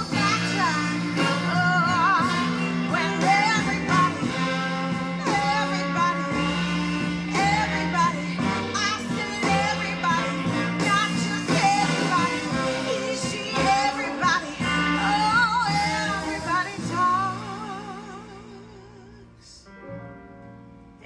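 Background music: a pop-rock song with vocals, which fades out over the last few seconds.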